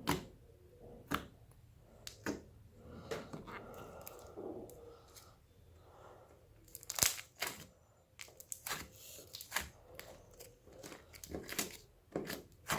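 Butter slime being squeezed and worked by hand, giving off irregular sharp clicks and little crackling pops, the loudest about seven seconds in.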